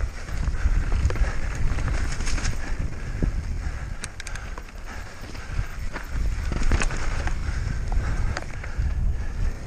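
Mountain bike on a rough downhill race course, heard from a camera on the rider or bike. Wind buffets the microphone with a heavy rumble, and the tyres and frame rattle and knock over the bumpy ground, with sharp knocks scattered throughout.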